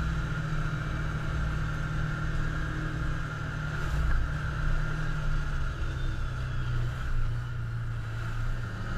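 Can-Am Commander side-by-side engine running steadily as the machine drives along a dirt trail, heard from the driver's seat. The engine note drops a little about halfway through as the driver eases off.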